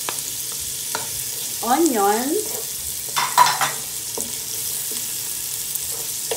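Chopped onion and garlic sizzling as they sauté in hot oil in a nonstick pan, stirred with a wooden spatula that scrapes and clicks against the pan now and then, most sharply a little after three seconds in.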